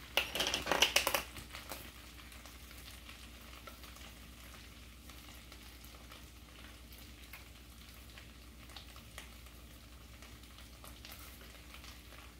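Cooked rice frying in oil in a skillet, giving a faint steady sizzle with small scattered ticks. About a second of louder clattering and rustling at the start as the seasoning is handled over the pan.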